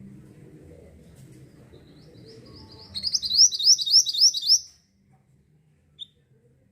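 Mantenan bird singing: a fast run of about seven sharp, high, down-slurred notes lasting about a second and a half, starting about three seconds in, followed by a single short chirp near the end.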